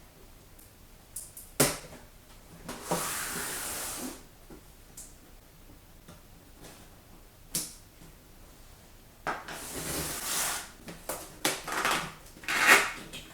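Large cardboard toy box being opened by hand: a couple of sharp taps, and cardboard and packaging rustling and scraping in several spells of about a second each.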